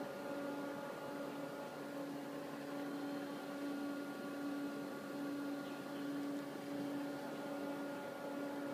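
Steady hum and fan noise from powered bench test equipment: a constant drone with a few steady tones over a soft hiss, the lowest tone wavering slightly in level.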